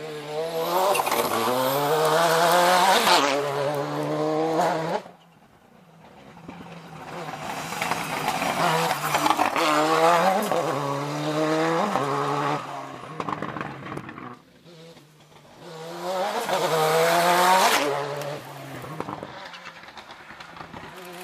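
Ford Escort RS Cosworth rally car's turbocharged four-cylinder engine revving hard up through the gears as it speeds by on gravel. The sound cuts off abruptly about five seconds in, then builds up twice more as the car passes again.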